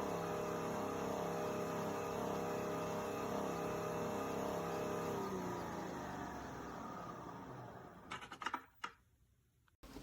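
Nespresso Vertuo Next coffee machine running, its motor giving a steady pitched hum that winds down after about five seconds and fades away, followed by a few sharp clicks.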